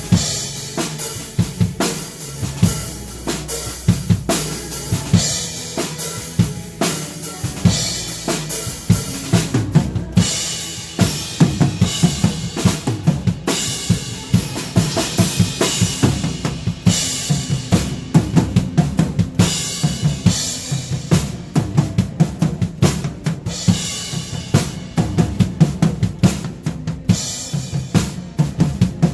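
Drum kit played in a steady worship-song groove: kick drum, snare and cymbals. The cymbal wash grows heavier about ten seconds in.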